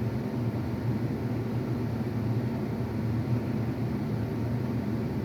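A steady low hum, even and unchanging.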